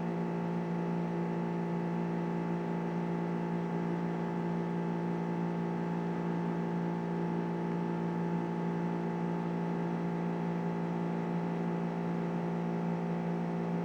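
A steady, unchanging mechanical hum with a low drone and several higher tones above it.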